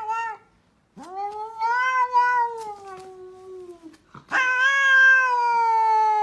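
Domestic cat yowling: the tail of a short call at the start, then two long, drawn-out yowls, the second beginning about four seconds in, each sliding slowly down in pitch.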